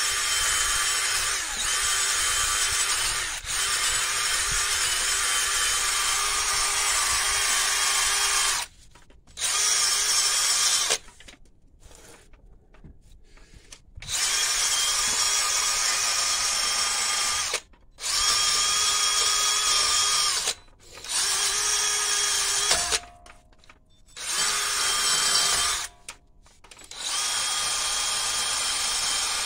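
DeWalt cordless drill spinning a cleaning attachment against a rusty wheel hub face, cleaning the rotor mounting surface down to bare metal. It runs in about seven stretches with short pauses between, a steady motor whine each time.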